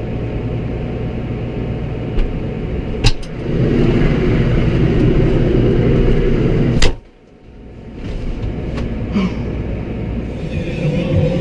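An engine running steadily, with a sharp click about three seconds in and a sharp crack near seven seconds, after which the sound briefly drops away and then returns.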